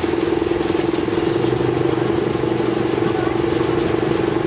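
Small engine of a miniature park-railway locomotive running steadily while pulling the train, with a rapid, even pulse.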